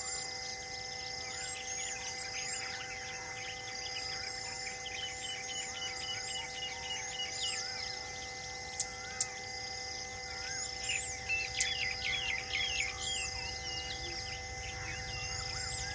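Many birds chirping and calling in quick, varied notes over a steady humming drone, busiest about eleven to thirteen seconds in. A couple of sharp clicks come about nine seconds in.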